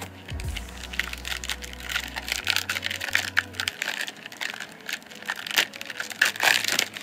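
Foil wrapper of a trading-card pack crinkling and tearing as it is pulled open by hand, a dense run of crackles that is loudest near the end.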